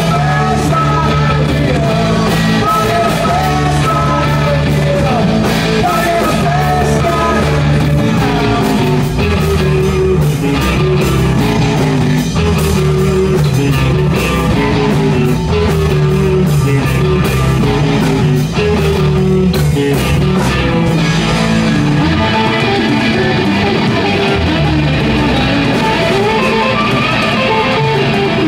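Live rock band playing loud and without a break: electric guitars over a drum kit keeping a steady beat.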